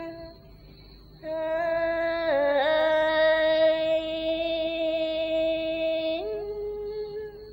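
Female voices of a Thai Isan sorapanya chanting troupe holding long sung notes: one note breaks off at the start, then after a short gap a long steady note with a brief dip in pitch, stepping up to a higher note near the end and fading.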